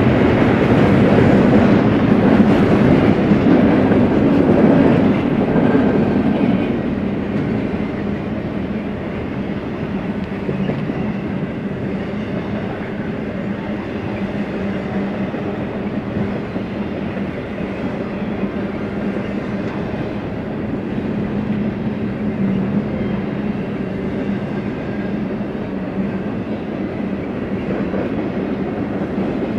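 BNSF freight train rolling past on the track, a steady rumble of wheels on rail, loudest for the first six seconds or so and then even.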